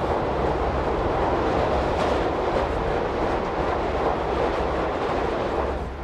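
Train running at speed, a steady rumble heard from inside a carriage.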